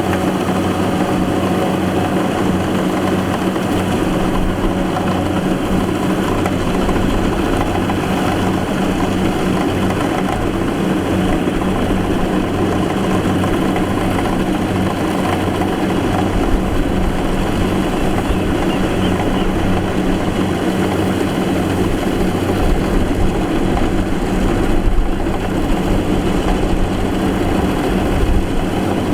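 A rice combine harvester's engine running steadily under load, a constant low hum over dense machine noise.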